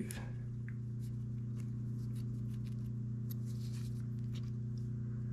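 A steady low electric hum from running shop machine motors, with faint light clicks of small metal fixture parts being handled.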